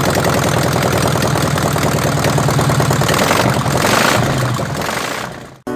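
VW Fusca (Beetle) air-cooled flat-four running with its muffler removed, straight through the bare pipe: a loud, rough, steady running note that swells briefly about four seconds in, then fades out near the end.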